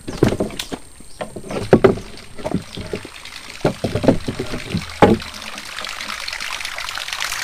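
Narrow wooden boat being worked along a channel: irregular knocks and thuds against the hull, the loudest about two seconds in and again about five seconds in. Near the end a hiss builds steadily.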